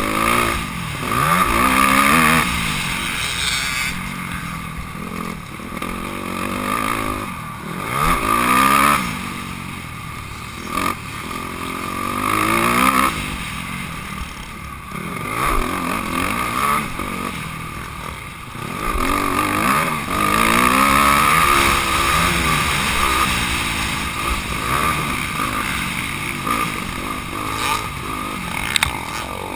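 Honda CRF250R's single-cylinder four-stroke engine revving hard and dropping back again and again as the rider accelerates, shifts and slows around a motocross track, the pitch rising and falling every few seconds.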